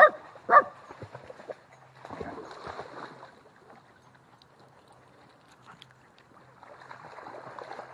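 A dog barks twice in quick succession. After that comes splashing water, in two spells, as dogs swim in the river.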